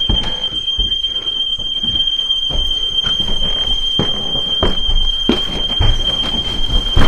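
A house alarm sounding one continuous high-pitched tone, with heavy footsteps and thumps on the floor at irregular intervals.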